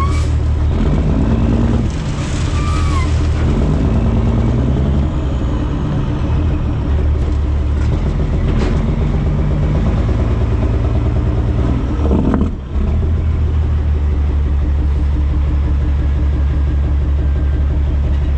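Caterpillar C13 inline-six diesel of a Kenworth W900 dump truck running steadily on the road, with a brief drop in the engine sound about twelve seconds in.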